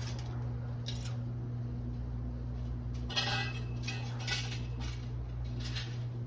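Short clinks and rattles of hard parts being handled, the busiest cluster about three seconds in, over a steady low hum.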